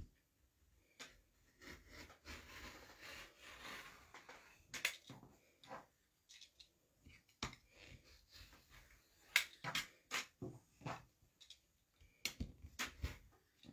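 Rotary cutter rolled through fabric against an acrylic ruler on a cutting mat: a soft scraping hiss a couple of seconds in, with scattered light clicks and taps of the cutter and ruler on the mat.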